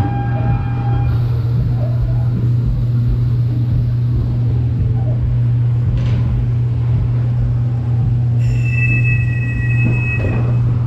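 Dark ride car running along its track with a steady, loud low hum. Brief high-pitched squeals come in right at the start and again about eight seconds in.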